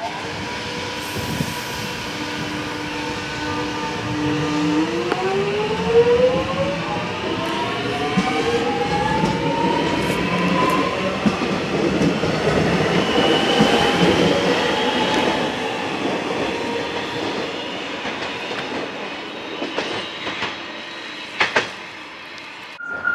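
Electric suburban train, a Melbourne High Capacity Metro Train, pulling away from a platform. Its steady hum gives way about five seconds in to a whine of several tones climbing in pitch as the traction motors accelerate, under a growing rumble of wheels on the rails that later fades as it leaves.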